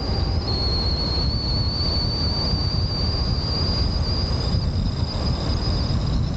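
Car driving along with wind and road rumble on the roof-mounted camera's microphone, a steady low noise, and a thin, steady high-pitched whistle over it.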